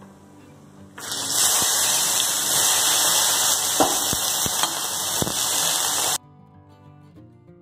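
Chopped onions sizzling and crackling as they drop into hot tempering oil in a kadhai. The loud sizzle starts about a second in and cuts off abruptly about five seconds later, leaving soft background music.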